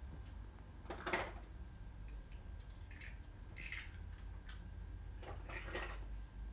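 Wooden spoon stirring a thick turkey and vegetable stew in a stainless steel pan: a few soft scrapes and wet squelches, about a second in, around the middle and near the end, over a low steady hum.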